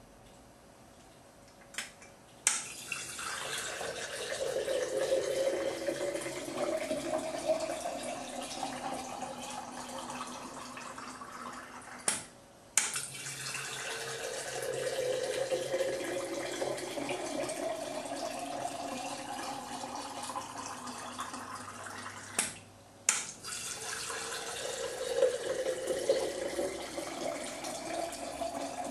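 Liquid candle wax pouring from the Pour X-Press 4500 dispenser's nozzle into glass jars, three pours one after another. Each pour is a steady running stream whose pitch rises slowly as the jar fills. Sharp clicks sound where one pour ends and the next begins.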